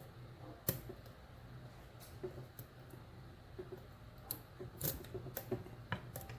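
Scattered small metallic clicks and taps of a lock pick and tension wrench working the pins of a euro-profile cylinder padlock: one sharp click about a second in, then a cluster of clicks near the end.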